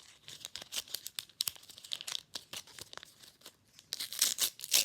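Toy packaging wrapper being torn open and crinkled by hand, with irregular crackles and a louder burst of rustling about four seconds in.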